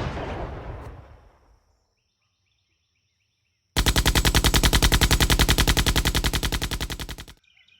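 Automatic machine-gun fire: a rapid, even burst of shots, roughly ten a second, lasting about three and a half seconds and cutting off abruptly. Before it, the fading tail of a boom dies away into silence.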